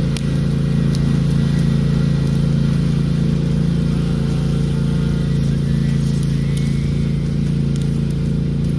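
An engine running steadily at a constant speed, an even low drone that does not rise or fall.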